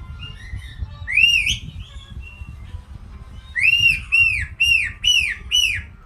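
Caique parrot whistling: one loud arched whistle, a few softer chirps, then a run of five loud whistled notes, each rising and then falling, about two a second.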